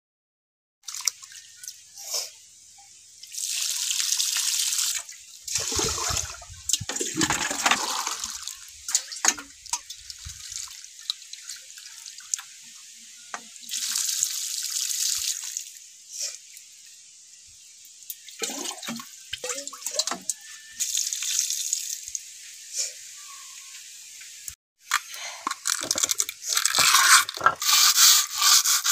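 Water poured from a metal pot splashing onto the ground, in several separate bursts. Near the end, a plastic scrub brush scrubs fast over a wet stone grinding slab and its stone roller.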